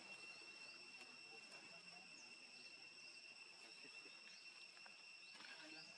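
Faint, steady high-pitched insect drone of several unchanging tones, with a few faint chirps.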